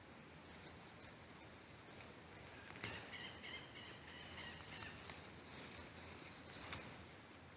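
A bird calling faintly, a short broken run of high notes about three seconds in, over soft rustling and light clicks.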